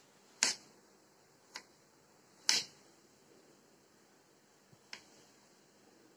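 Paring knife chopping peeled potato on a cutting board: sharp knocks of the blade against the board about half a second, a second and a half, two and a half and five seconds in, the third loudest.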